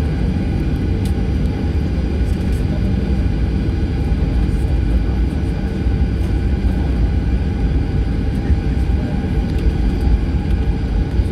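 Cabin noise inside a Boeing 737-800 taxiing, its CFM56 jet engines at low thrust: a steady low rumble with a few constant hums over it.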